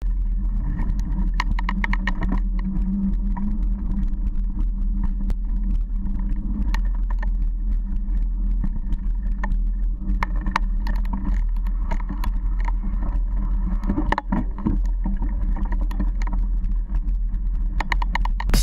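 Steady low rumble of wind and tyres on a camera riding a mountain bike over a sandy dirt forest road, with scattered small clicks and rattles from the bike and the ground.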